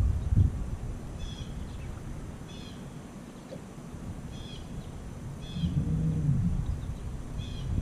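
A bird calling over and over outdoors, short high calls roughly every second and a half, over a low rumble of wind on the microphone. A brief low hum comes in about six seconds in.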